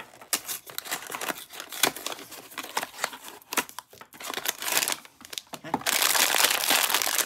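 Small cardboard blind box opened and emptied by hand, with scattered taps and rustles. From about six seconds in, a foil blind bag crinkles loudly and continuously as it is handled.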